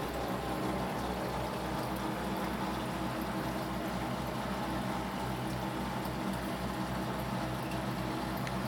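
Running aquarium equipment: a steady wash of water noise with a low hum that pulses evenly and quickly throughout.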